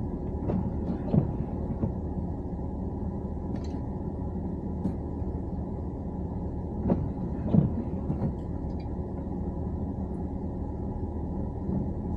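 Heavy-duty pickup truck heard from inside the cab while driving: a steady low engine and road rumble, with a few short knocks or clicks.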